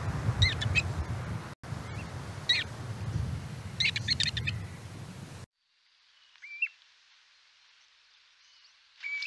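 Ruddy turnstones giving short chattering calls over wind rumble, with a quick rattling series near the middle. The sound then cuts to a quieter recording in which a Kentish plover gives two single calls a few seconds apart.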